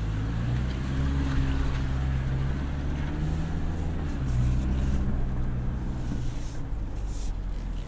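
2024 Toyota Land Cruiser's 2.4-litre turbocharged hybrid four-cylinder engine running at low speed, heard from inside the cabin as a steady low hum whose pitch drifts up and down a little, over the rumble of the tyres on a dirt track.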